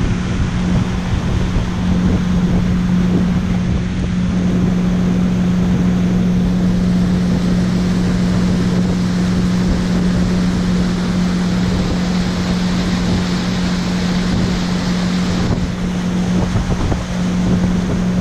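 Pontoon boat's motor running steadily under way, a constant drone, with wind buffeting the microphone and water rushing past the hull.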